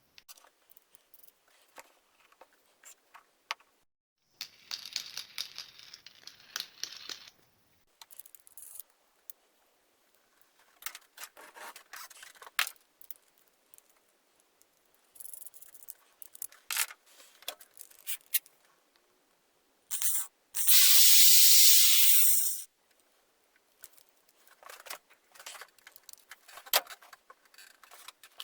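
Brushing and handling noises while handles are painted with acrylic primer: scattered clicks, taps and short scratchy scrapes, with a loud hiss lasting about two seconds roughly three quarters of the way through.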